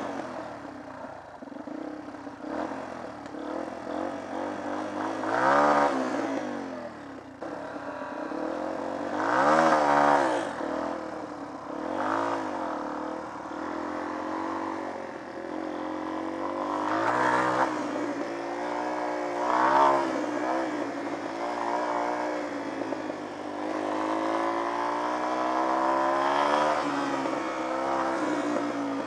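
Small, old single-cylinder trail motorcycle engine under way, revving up and easing off several times as it is ridden, with the loudest rises about six, ten, seventeen and twenty seconds in.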